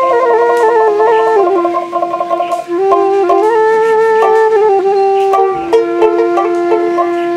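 Bamboo flute (bansi) playing a stepping folk melody with held notes over a steady low note, with a dotara plucking along: an instrumental passage of a Bhawaiya song.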